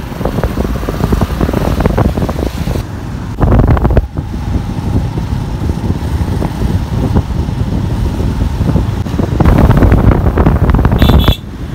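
Wind rushing and buffeting the microphone on a moving motorcycle, over the running engine. The gusts are loudest briefly about three and a half seconds in and again near the end.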